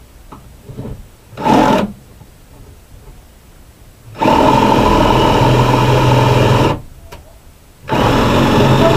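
Ryobi drill boring into wood: a short burst about a second and a half in, then two longer steady runs of a few seconds each with a pause between.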